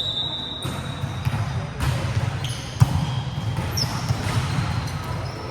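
Volleyball being struck and bouncing in a reverberant sports hall, with one sharp hit about three seconds in among a few lighter thuds.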